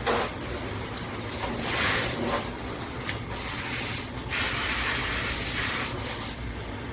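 Water spraying from a handheld and rainfall dual shower head, a steady rush that swells and eases as the spray shifts.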